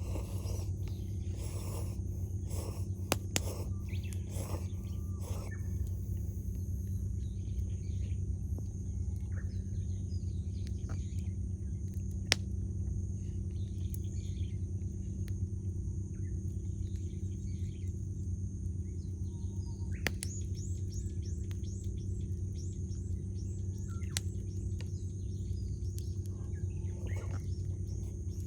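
Wood campfire crackling, with a few sharp pops, over a steady low hum. Wild birds chirp and call throughout.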